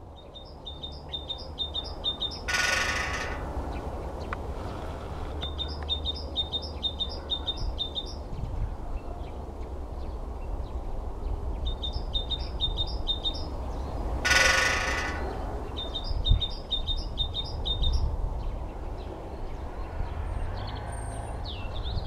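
Great spotted woodpecker drumming on a power-line pole: two short, ringing drum rolls about twelve seconds apart, each under a second long. This is the bird's spring territorial drumming. Between the rolls a small songbird sings a short high phrase over and over in several bouts.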